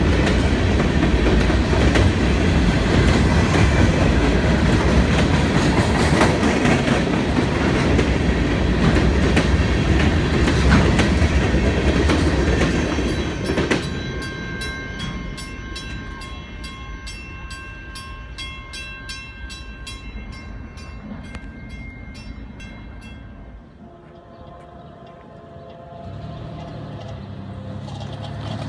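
Freight train cars rolling past at close range, their wheels clattering steadily over the rail joints, until the last car clears about halfway through. Then a grade-crossing warning bell keeps ringing. Near the end a low rumble starts to build.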